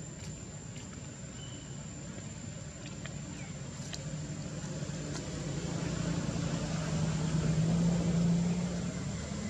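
A motor engine's low hum, growing louder through the second half and easing off near the end, like a vehicle passing.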